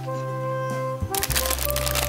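Crinkling and crackling of a foil blind-box bag being pulled open by hand, starting about a second in, over steady background music.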